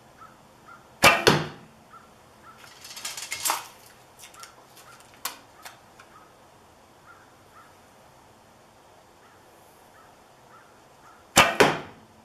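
Two shots from a Martin Viper longbow with carbon limbs and a 10-strand D97 endless-loop string with no silencers, about ten seconds apart. Each is a loud, sharp double crack of the string's release twang, the bow's natural resonance. Rustling between the shots, around three seconds in.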